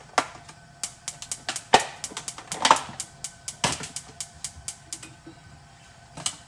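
Chopsticks clicking and scraping against a small plastic bowl of minced garlic: a run of quick, irregular clicks with a few louder knocks in the middle, then a pause and one more click near the end.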